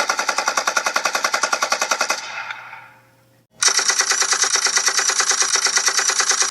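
Automatic-gunfire sound effect: a rapid, evenly spaced burst of shots that stops about two seconds in and trails off, then after a short gap a second sustained burst that starts about three and a half seconds in.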